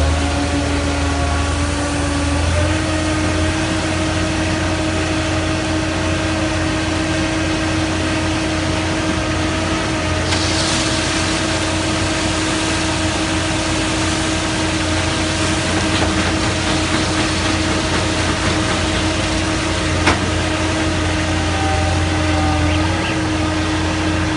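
Engine of a self-loading concrete mixer running steadily, its pitch stepping up slightly about two and a half seconds in. A hiss joins about ten seconds in, and there is a single sharp click about twenty seconds in.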